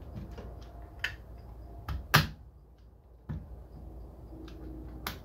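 Scattered sharp clicks and knocks of a tool working at the glued seam of a Bose cube speaker's housing, the loudest about two seconds in.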